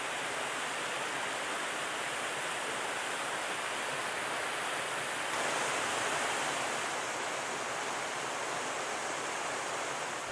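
Small mountain waterfall cascading over rocks into a creek, a steady rush of splashing water that grows a little louder about halfway through.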